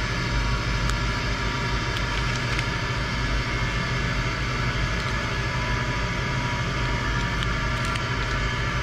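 Steady mechanical hum with a hiss, with a few faint ticks.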